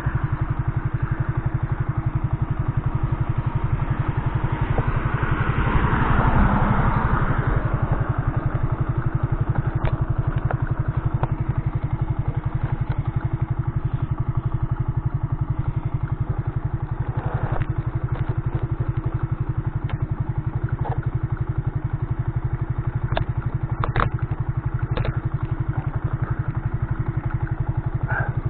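Benzer Yankee 50cc moped's single-cylinder four-stroke 139FMB engine idling steadily. A louder swell of noise comes for a couple of seconds around six seconds in, and a few sharp clicks come later.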